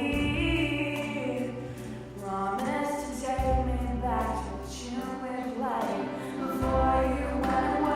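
Recorded choral music: a group of voices singing long, sliding notes over deep held bass notes.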